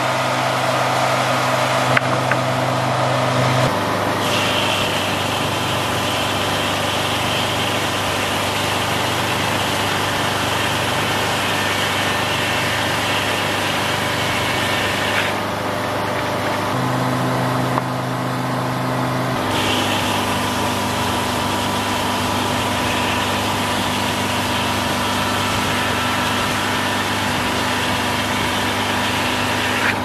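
Detroit Diesel engine and the running Frick circular sawmill it drives, with a steady mechanical hum and a spinning-blade whir. The sound shifts in tone about four seconds in and again for a few seconds around the middle.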